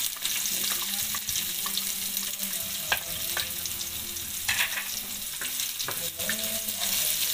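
Chopped onion and garlic sizzling in hot oil in a wok, a steady frying hiss with a few sharp clicks. A wooden spatula starts stirring them near the end.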